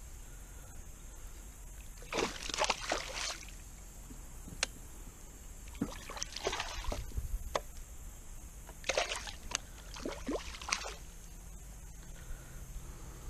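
A hooked bass splashing at the water's surface beside a kayak while being reeled in, in three bouts of thrashing a few seconds apart.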